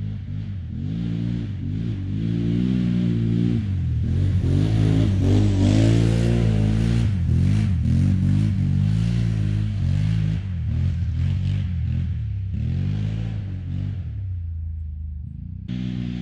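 Can-Am Renegade quad's V-twin engine revving up and down as it is ridden through the gears, growing louder to a peak around six seconds in and then fading. It comes back suddenly near the end.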